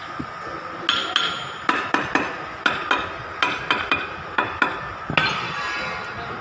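A hammer striking metal: about a dozen sharp, ringing blows at an uneven pace over some four seconds, starting about a second in, with the last strike near the end ringing longest.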